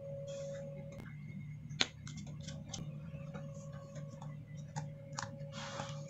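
Small clicks and taps of hands and tools working on an opened laptop's internals, one sharper click about two seconds in, over a steady low hum.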